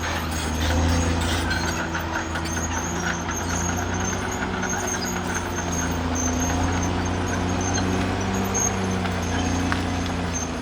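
Caterpillar D6R XL bulldozer's diesel engine running steadily under work, with a thin high-pitched squeal that comes and goes over it.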